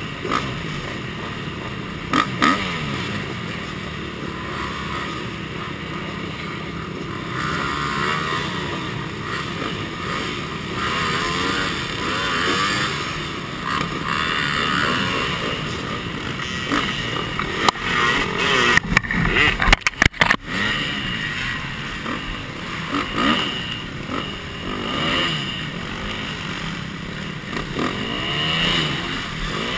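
Several dirt bike engines running and revving, their pitch rising and falling. A burst of sharp knocks comes about two-thirds of the way through.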